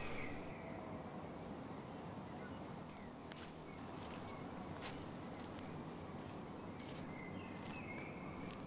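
Faint outdoor ambience: a low, steady background noise with short bird chirps that rise and fall, repeated every second or so, and a few brief sharp clicks.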